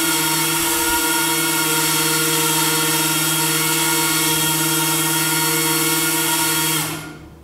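Small brushless motor spinning a 4052 propeller on a thrust-test stand, running at part throttle with a steady whine, then spooling down and stopping about seven seconds in.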